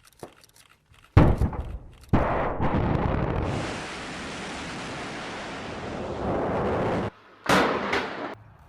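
Thunder cracking and rumbling in short, abruptly cut clips, with a stretch of steady rain noise in the middle. The first loud crack comes a little over a second in, another rumble about two seconds in, and a last burst near the end.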